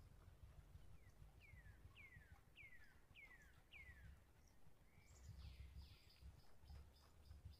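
Faint bird calling: a run of about six falling whistled notes, then quick high chirps near the end, over a low rumble.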